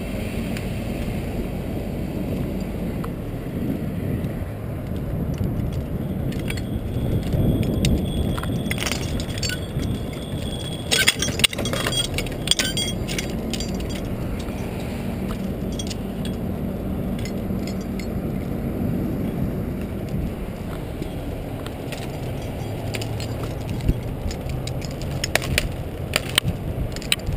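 Crane hook chain and steel rigging hardware clinking and jangling in short clusters, about ten seconds in and again near the end, over a steady low drone.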